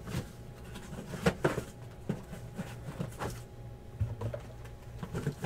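Irregular light knocks and taps of shrink-wrapped trading-card hobby boxes being handled and set down on a counter, with a cardboard shipping case being reached into, over a steady low hum.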